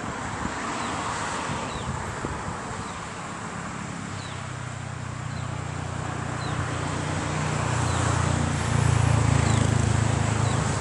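A car engine running and growing louder as the car moves close by, loudest near the end. Faint high falling chirps repeat about once a second over a steady outdoor hiss.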